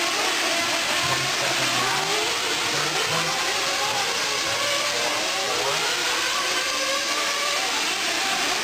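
Several 1/8-scale nitro truggies racing, their small glow-fuel engines revving, each pitch rising and falling as they accelerate and lift off around the track, over a steady hiss.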